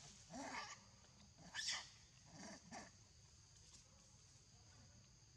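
Baby monkey giving about four short calls that curve in pitch, in the first three seconds.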